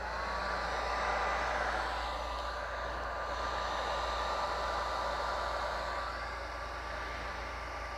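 Heat gun blowing steadily, with a faint whine from its fan motor, passed lightly over freshly poured epoxy to pop surface bubbles.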